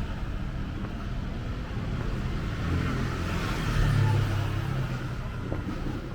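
City street traffic: motor vehicles passing with a steady low engine rumble, one passing louder about four seconds in.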